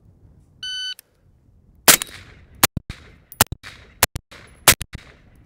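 A shot timer beeps once, and about a second later an AR-style rifle fires a quick series of shots, several coming in close pairs, each with a short echo. The first shot is the loudest.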